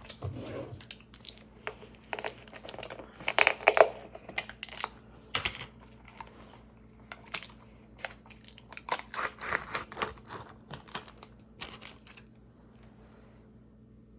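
Plastic food containers and utensils being handled: scattered clicks, taps and crinkling, busiest twice in the middle, dying away about twelve seconds in.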